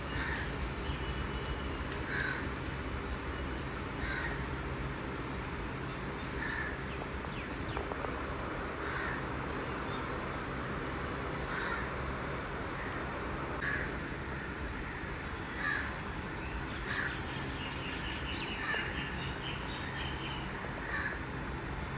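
A crow cawing again and again, a short harsh call about every two seconds, over a steady low background rumble.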